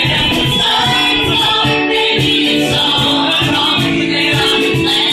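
Live acoustic band playing and singing: strummed acoustic guitars with several voices singing over a steady beat.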